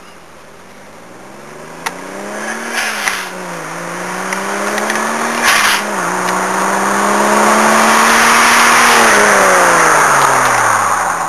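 Turbocharged Toyota Supra inline-six through a 3.5-inch Veilside exhaust, accelerating hard through two upshifts, each with a short burst of noise. It is loudest as it passes, then the pitch falls as it pulls away.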